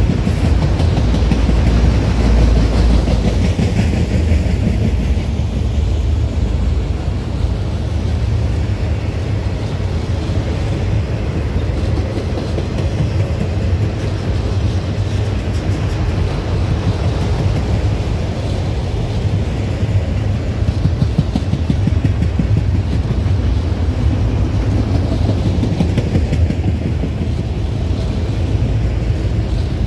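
Freight train of enclosed autorack cars rolling past at steady speed: a continuous loud rumble of steel wheels on the rails, with fine rapid clatter and no locomotive sound.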